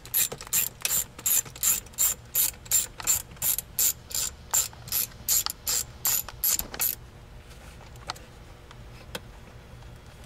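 Hand ratchet with a 7mm socket clicking steadily on its back-swings as it unscrews a console hold-down nut, about three clicks a second. The clicking stops about seven seconds in, leaving a few faint clicks.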